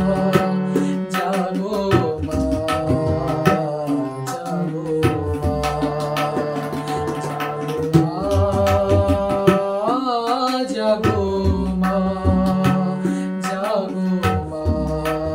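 A man singing a Bengali devotional song while playing a harmonium, its reeds holding sustained chords under the voice, with a regular drum beat accompanying.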